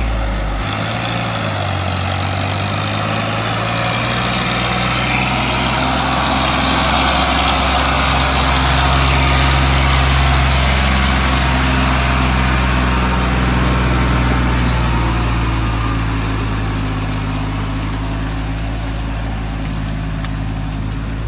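Farmtrac 6060 tractor's diesel engine running steadily as it hauls a loaded trolley through mud, growing louder toward the middle and easing off toward the end.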